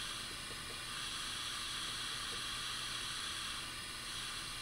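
Steady hiss of background noise, with no distinct sounds standing out.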